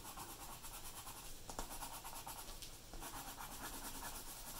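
Coloured pencil scratching on paper in quick, rhythmic back-and-forth strokes as a shape is filled in with colour.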